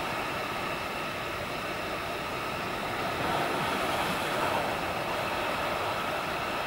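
Sea waves breaking and washing over coastal rocks, a steady rushing of surf that swells as a bigger wave hits about midway through.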